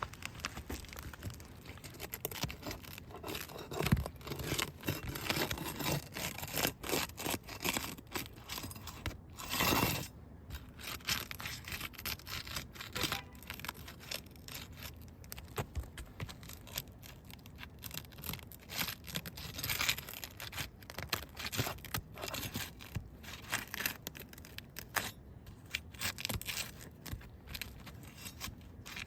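Roof shingles being pried up and unsealed by hand: the sealed-down tabs tearing loose with crackling and scraping in many short, irregular bursts.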